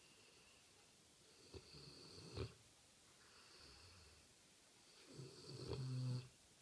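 Snoring: two snores, about one and a half and five seconds in, the second longer and louder and ending in a low buzzing tone, with faint high whistling breaths between them.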